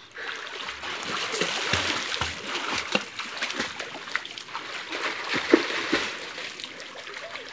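Water splashing in a small pool as children swim and dive under, a steady wash of splashes with irregular sharper slaps.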